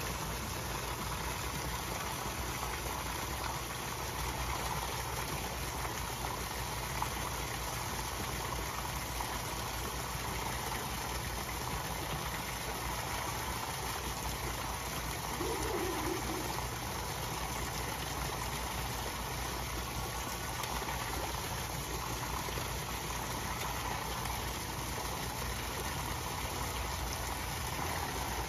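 Water pouring steadily into a koi pond from an inlet spout, splashing on the surface, over a low steady hum.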